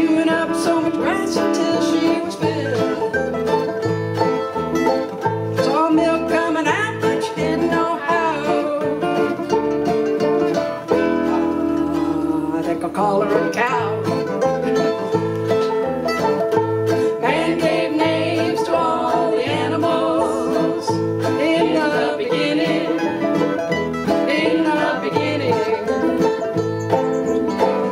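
Small acoustic string band of mandolins and acoustic guitar picking and strumming a country-folk tune together at a steady beat.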